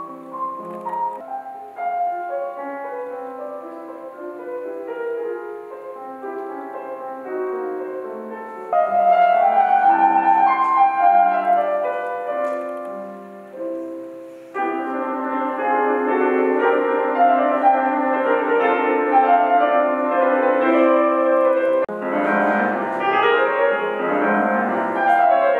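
Solo classical piano on a new Steinway & Sons concert grand, played in full. Softer running notes change abruptly to loud, dense chords about a third of the way in, and the playing shifts suddenly again past halfway and near the end.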